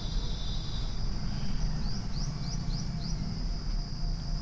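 Outdoor background: a steady high buzz of insects such as crickets, and a bird giving a quick run of about six short rising chirps midway, over a steady low rumbling noise.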